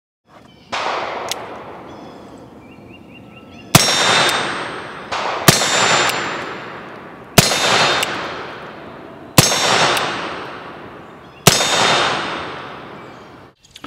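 A .44 caliber black-powder cap-and-ball revolver (a brass-framed Griswold and Gunnison replica) firing five sharp shots about two seconds apart. Each shot is followed by a high ringing and a long echoing decay. A quieter thump comes about a second in.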